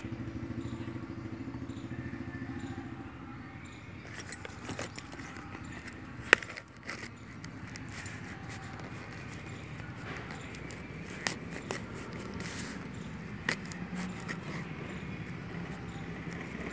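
A cardboard parcel's shipping label and tape being slit and scraped with a small pointed tool: scattered scratching and a few sharp clicks, the loudest about six seconds in, over a steady low hum.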